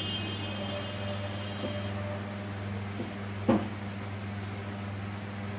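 Steady electrical mains hum on a repair bench, with a faint high electronic whine over the first two seconds. A sharp knock about three and a half seconds in is the loudest sound, with a couple of fainter ticks before it.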